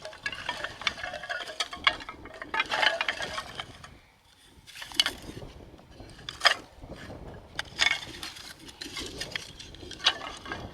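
Handling noises: a run of sharp clinks and knocks with rustling and scraping between them, as objects are picked up and set down.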